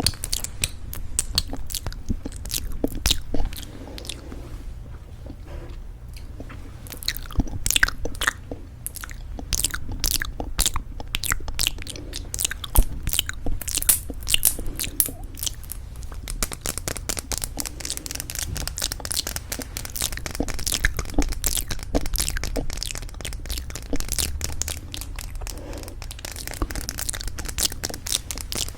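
Close-miked tapping on lipstick tubes: quick, irregular clicking taps, easing off briefly about four seconds in, then picking up again.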